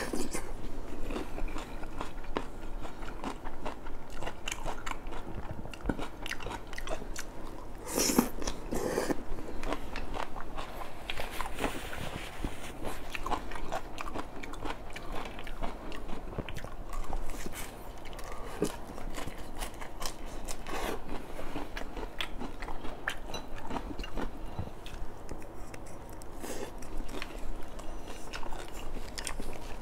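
Close-miked chewing and biting of stir-fried satay squid, with small clicks of chopsticks on the dishes. There are a few louder crunches about eight seconds in and again around twenty-one seconds.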